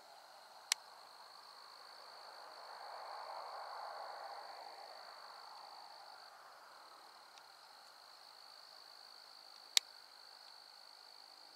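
Faint, steady, high-pitched insect chirring in the open air, with a soft rushing noise that swells and fades over a few seconds. Two sharp clicks, one near the start and one near the end.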